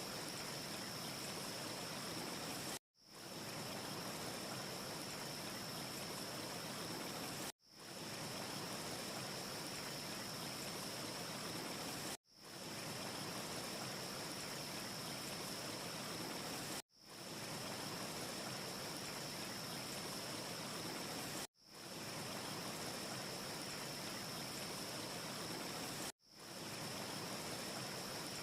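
Steady rushing noise with a faint high hiss running through it, with no crackles. It cuts out to silence about every four and a half seconds and fades straight back in each time, a short clip looped over and over.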